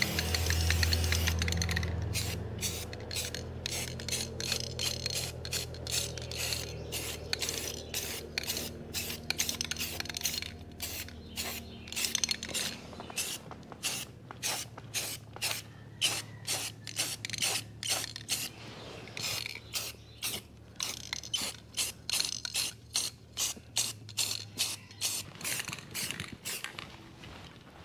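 Aerosol spray-paint can at work on an engine block: a steady hiss for about two seconds, then a long run of short sharp strokes, about three a second, until near the end.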